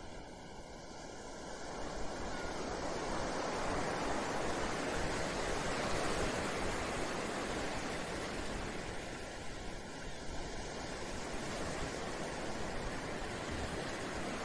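Ocean surf sound bed: an even rush of breaking waves that swells up over the first few seconds, then holds with slow rises and falls.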